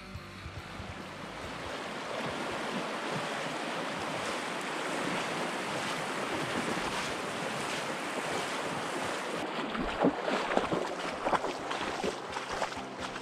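Shallow river rushing steadily over a stony bed as a black Labrador wades through the current. From about ten seconds in come several sharper splashes.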